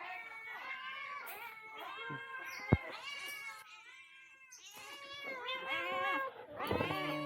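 Several domestic cats meowing over one another in repeated, overlapping calls, with a brief lull in the middle. A single sharp click sounds about two and three-quarter seconds in.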